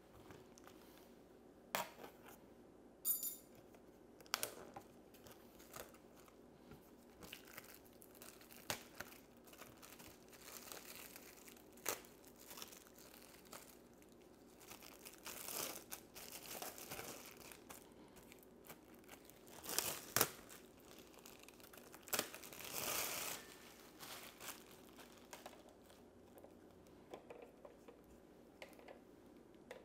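Clear plastic wrapping crinkling and rustling as it is handled and pulled off a new cylinder-head gasket, in bouts with pauses between, mixed with a few sharp clicks and taps.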